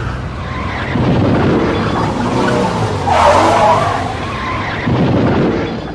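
Car tyres skidding and screeching under hard braking on an Autobahn as the traffic ahead crashes, loudest a little past halfway.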